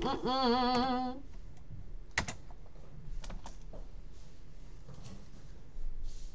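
Keys tapped on a computer keyboard: a scattered handful of keystrokes, then a quick run of them near the end, while a chat command is typed. A woman's voice makes a short wavering hum in the first second.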